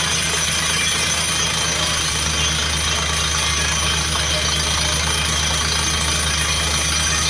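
Truck-mounted water well drilling rig's engine running steadily under test, with a constant high hiss over the low engine note.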